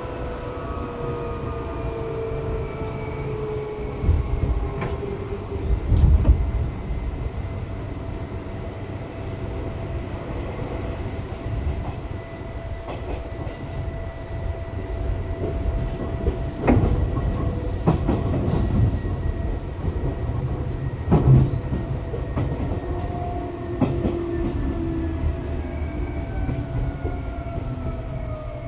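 Seibu 2000 series electric train running, heard from inside a passenger car: a steady low rumble with a few heavy thumps of the wheels over rail joints. Whining motor and gear tones slide down in pitch near the start and again near the end as the train slows.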